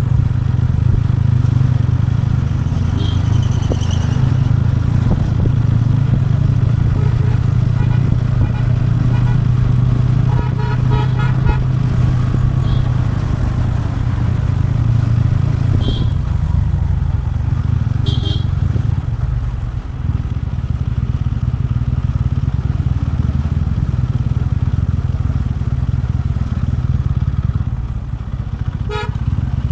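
TVS Ronin's single-cylinder engine running steadily while the motorcycle is ridden, a continuous low rumble.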